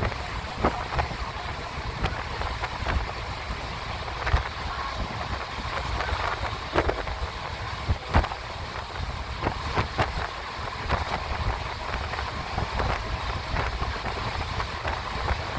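Passenger train running at speed, heard at an open coach window: a steady rumble and rush of running noise with wind, broken by scattered sharp knocks from the running gear at irregular moments.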